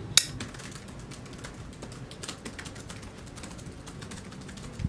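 Fast typing on a laptop keyboard: a steady patter of light key clicks, with one louder click just after the start.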